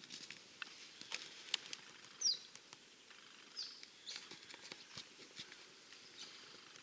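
Quiet outdoor ambience with two short, falling bird chirps, one a little after two seconds and another past three and a half, over scattered light clicks and ticks.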